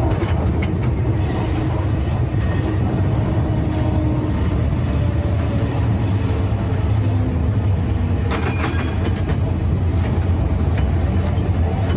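Vintage Type A tram running along the track with a steady low rumble, and a brief clatter of clicks about eight seconds in.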